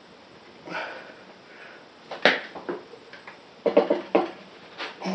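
Irregular squeaks and knocks as the new tire's rubber bead is levered over a motorcycle wheel rim with a Mojolever on a manual tire changer: a sharp click a little over two seconds in and a cluster of quick squeaks around four seconds.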